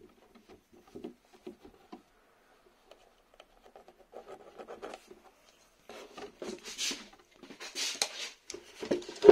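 Light scratching and rubbing of a pen drawing marks on painter's tape on a plastic RC truck body, in short strokes, sparse at first and busier in the last few seconds, ending on a sharp knock.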